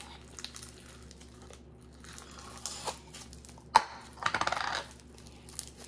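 Hands squishing and poking pink slime, with soft crackling and clicking. A sharp tap comes a little under four seconds in, followed by a quick run of small pops lasting about half a second.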